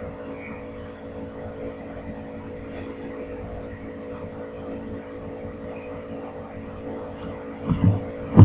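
A steady background hum with an even hiss under it, then two short low thumps near the end, the second one the loudest.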